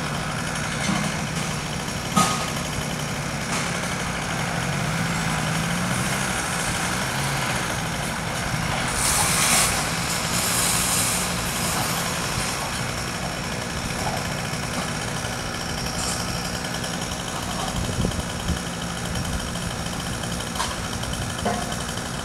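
Diesel engine of a hi-rail maintenance truck running at low speed, with a short hiss of released air about nine seconds in.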